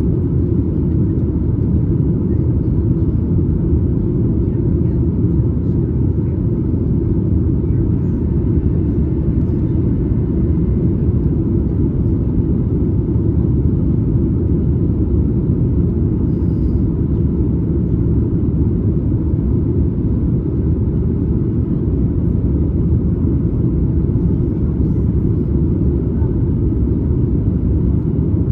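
Steady low rumble of engine and airflow noise inside the cabin of a Boeing 737 MAX 8 airliner.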